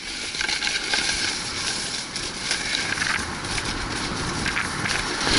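Steady rushing noise of a fast downhill ride, with scattered small clicks and rattles over it.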